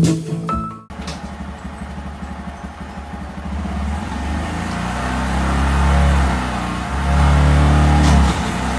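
Honda Monkey 125 single-cylinder motorcycle engine running, the revs raised twice: once about halfway through and again shortly before the end. Guitar music cuts off sharply about a second in.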